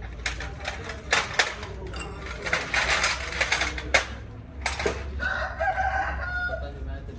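Sharp metallic clinks and knocks, and a rooster crowing once about five seconds in, over a steady low hum.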